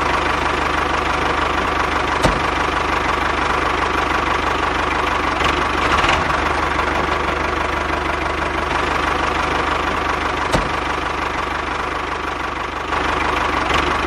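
Tractor engine running steadily at idle, with two faint clicks.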